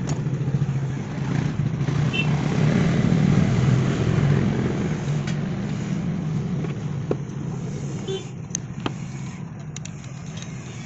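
Tata Super Ace engine running steadily, a low, even hum that swells a little in the middle and eases toward the end. A few sharp metallic clicks come through it in the second half.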